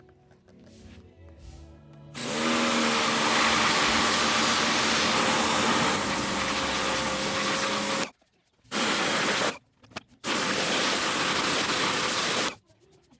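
A motorised cleaning machine starts about two seconds in: its motor hum rises as it spins up under a loud, steady rushing hiss. It runs about six seconds, cuts out, and then runs in two shorter bursts with brief stops between.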